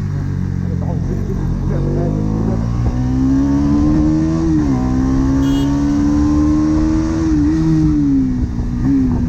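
Stock exhaust of a Bajaj Pulsar NS200's single-cylinder engine under way: the revs climb over the first few seconds, drop at a gear change about halfway, then hold steady at cruise with two short dips near the end.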